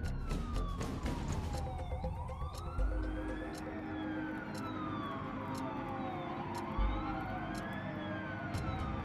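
Emergency vehicle siren wailing, its pitch sliding slowly down and back up about every four seconds, with two dull low thuds underneath.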